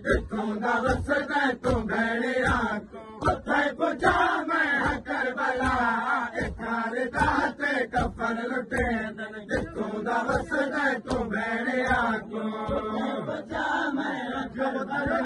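A crowd of men chanting a noha, a Shia mourning lament, in unison, over a regular beat of sharp strikes from hands slapping chests in matam.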